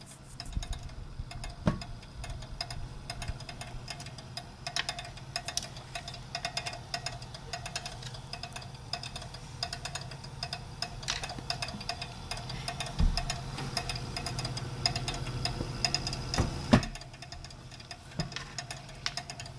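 EVGA GeForce GTX 960 graphics card giving off rapid, irregular clicking over a steady low hum, with a few louder knocks; the clicking goes on whether or not the fan spins and was cured by a new power supply, so it is tied to the power supply rather than the fan.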